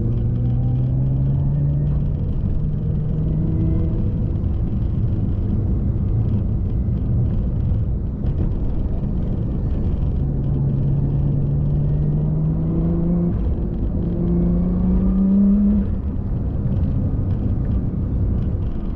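Vehicle engine pulling under load, its pitch climbing slowly and dropping back several times as it runs up through the gears, over a heavy road and wind rumble.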